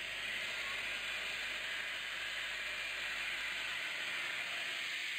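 Steady abrasive hiss of grinding on the bevelled end of a steel pipe, the hand finishing of a weld preparation down to bare metal.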